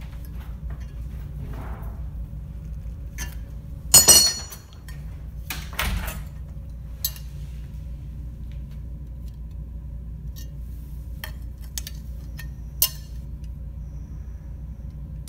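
A metal orthosis stirrup, a bending iron and a steel combination square being handled and knocked together. There is a loud, ringing metal clank about four seconds in, and a few lighter clicks and clinks later. A steady low hum runs underneath.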